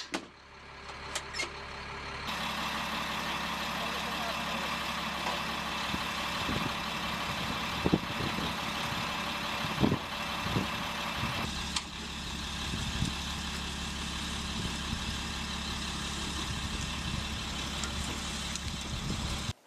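Military cargo truck's diesel engine idling steadily, with a few sharp knocks and clacks over it, the loudest about eight and ten seconds in.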